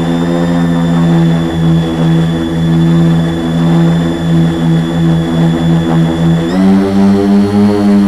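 Quadcopter's four Multistar 2212 920kv brushless motors spinning 10x4.5 props, heard through a camera mounted on the frame. It is a loud, steady buzzing hum with a high whine and a wavering beat between the motors. About six and a half seconds in, the motors speed up and the pitch steps higher.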